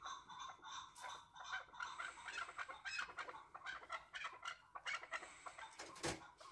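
Chukar partridges calling in rapid repeated clucking notes, several a second, with a sharp knock about six seconds in.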